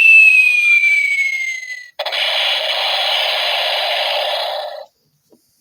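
A sound effects machine plays a preset effect through its small speaker. A long falling whistle ends about two seconds in. It is followed at once by about three seconds of steady rushing noise that cuts off abruptly.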